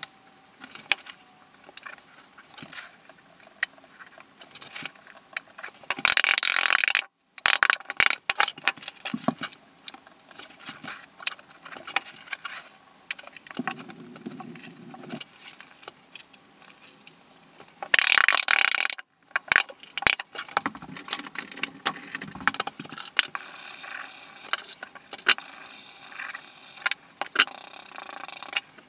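Rapid clicking, scraping and rattling of hand tile work: a rubber grout float and sponge worked over a hexagonal mosaic tile floor. Twice, about 6 and 18 seconds in, there is a louder, denser burst of scraping noise.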